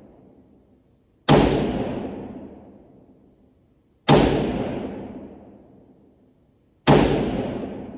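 Ruger AR-556 rifle firing 5.56 rounds single shot at a slow steady pace: three shots about three seconds apart, each ending in a long echoing tail.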